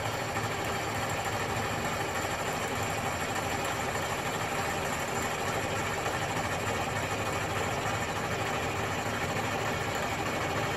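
Milling machine running slowly in back gear at about 190 RPM, its half-inch four-flute high-speed steel end mill taking a light resurfacing cut across a cast-iron exhaust manifold flange. The noise is a steady, even drone.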